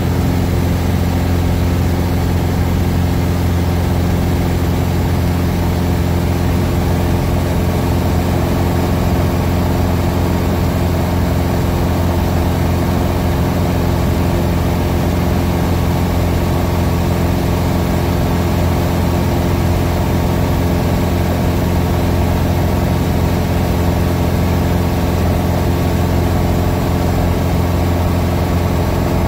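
Light aircraft's engine and propeller droning steadily in smooth cruise, heard from inside the cabin: a constant low hum with several steady tones and a hiss of air over it.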